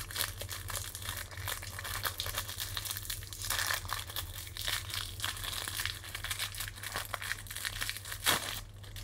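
Thin clear plastic bag crinkling and rustling irregularly as it is handled and a deck of cards is pulled out of it, with a sharper crackle near the end.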